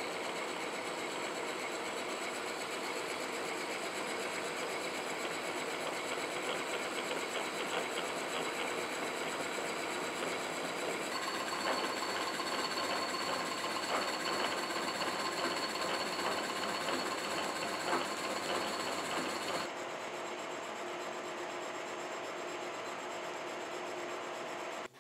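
Kearney & Trecker Milwaukee Model H horizontal milling machine running, its face mill taking a roughly 100-thousandths facing cut across bronze bearing castings, with a steady gear whine under the chatter of the cut. About 20 seconds in the cutting noise drops away as the cutter clears the work, and the machine runs on.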